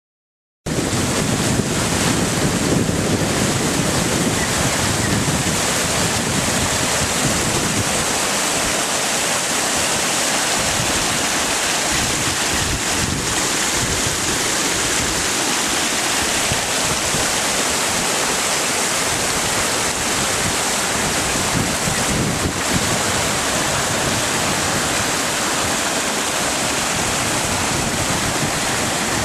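Storm floodwater rushing steadily, a dense unbroken noise that cuts in suddenly just after the start.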